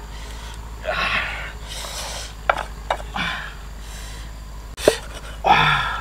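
Several breathy, gasp-like sounds about a second apart, with a few sharp clicks between them. The last gasp, near the end, is the loudest and drops in pitch.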